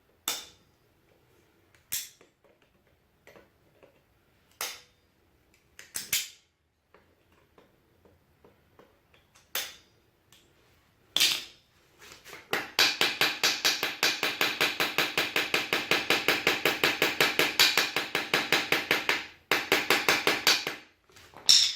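Metal hand tools working on a steering rack: scattered single sharp clicks and knocks, then about seven seconds of fast, even clicking at roughly nine strokes a second, with a second short run near the end.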